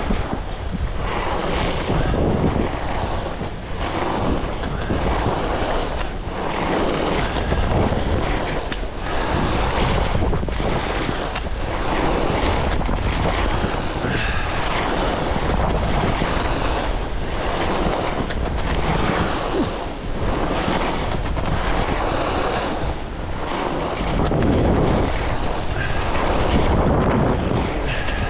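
Skis carving turns on groomed snow, a swish at each turn about once a second, under wind rushing over the microphone.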